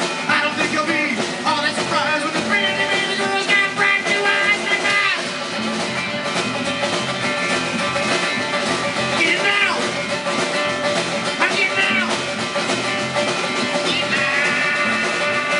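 Live rockabilly band playing without vocals: upright bass and acoustic guitar, with high notes that slide in pitch now and then.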